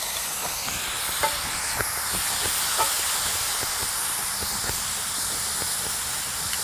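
Shrimp and their oil-and-vinegar paprika marinade sizzling and hissing steadily on a very hot iron plancha as the liquid flashes to steam. Metal tongs tick and scrape against the pan as the shrimp are stirred.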